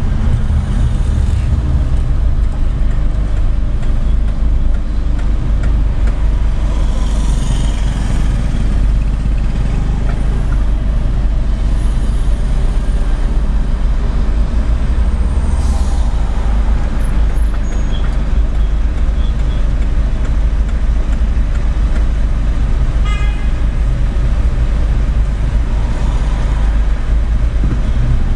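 Steady low rumble of a car moving slowly in city traffic, with a short high toot late on.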